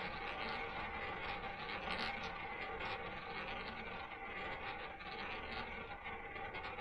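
Ball rolling around the track of a spinning double-zero roulette wheel: a steady, quiet whirr with faint small ticks.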